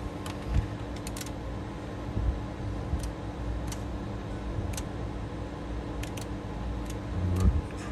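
Scattered light clicks of radio control knobs and switches being worked, about a dozen at uneven intervals, over a steady low hum, with a duller bump near the end.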